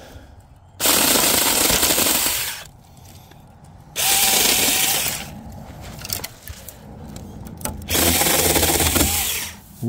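Electric saw run in three bursts of about one and a half to two seconds each, cutting through thick, hard plant stalks. Its motor winds up and down at each start and stop.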